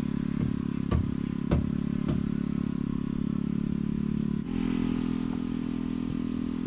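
A small engine running steadily, with a few light knocks in the first couple of seconds; its note shifts slightly about four and a half seconds in.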